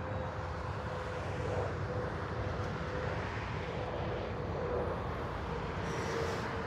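Steady distant engine drone with a faint held hum.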